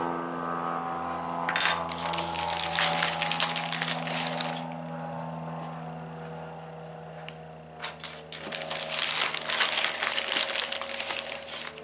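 Small hard plastic 3D-printed model parts clattering and rattling as they are handled and moved about, in two bursts of two to four seconds each. Under them runs a steady low hum that slowly fades.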